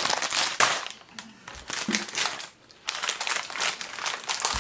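Clear plastic bag of hair bows crinkling and crackling as it is torn open and rummaged through by hand. There is a brief lull about two and a half seconds in.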